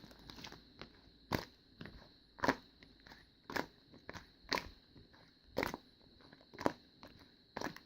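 Toy slime being mixed and squeezed by hand, giving sharp popping clicks about once a second, some in quick pairs.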